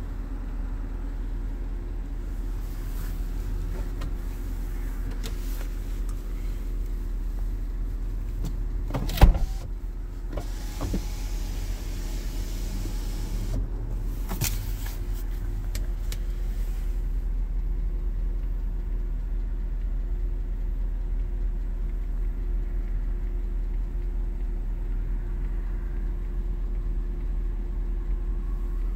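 Power sunroof of a 2009 Cadillac Escalade ESV working: a sharp click about nine seconds in, then its motor runs for a few seconds, over a steady low hum inside the cabin.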